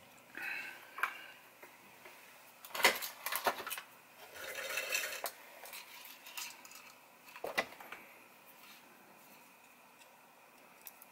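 Hands handling a disassembled computer mouse and small tools on a workbench: a few sharp clicks and knocks of hard plastic and metal, about three seconds in, again half a second later and once more near the middle, with a short stretch of rustling between them.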